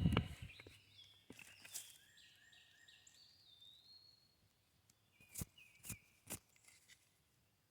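A dull thump at the start, then a bird calling a run of short whistled notes, followed by three sharp clicks about half a second apart.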